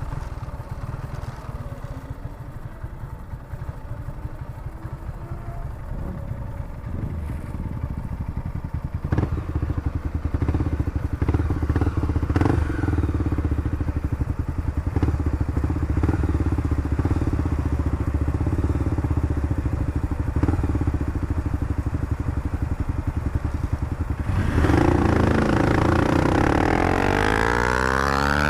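Honda CBX 200 Strada motorcycle's single-cylinder engine running under way. It grows louder about a third of the way in, and near the end the engine revs up with a sweeping rise in pitch.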